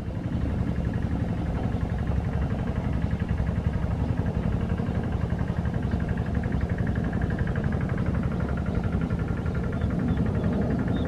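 An engine running steadily, a little louder near the end.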